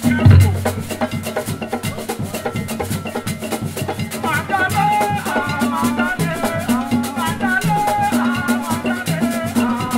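Ben skin dance music of West Cameroon: skin-headed hand drums and shaker rattles keep a fast, even beat, with a deep thump just after the start. Voices join in singing from about four seconds in.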